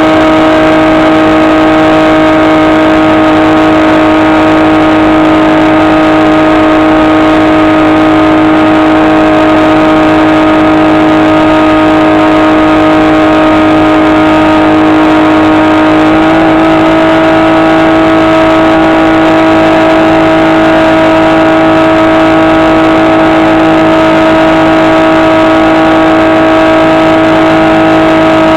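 HobbyKing SkyEye model plane's electric motor and propeller giving a loud, steady whine. The pitch steps up slightly about sixteen seconds in, as the throttle is opened a little.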